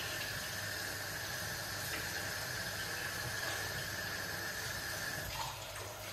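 Sliced peppers, onion and tomato sizzling in a stainless steel pan on an induction hob: a steady hiss, with a thin high tone underneath that stops about five seconds in.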